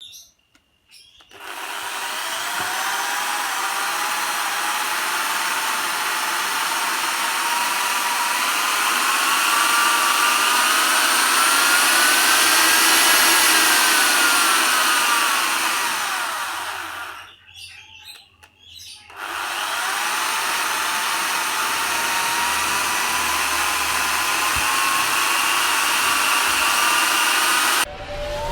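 Electric power tool motor running at varying speed: its whine climbs slowly, peaks, then falls, stops for a couple of seconds, then starts again and climbs slowly. The speed is being turned up and down through a home-made AC dimmer speed controller.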